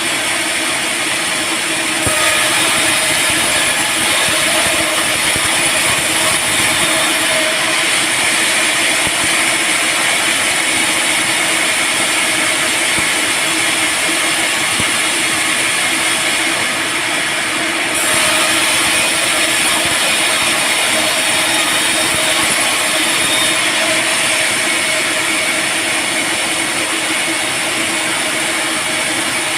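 Band sawmill running steadily as it saws teak, a constant mechanical whine and hiss that grows louder about two seconds in and again after about eighteen seconds.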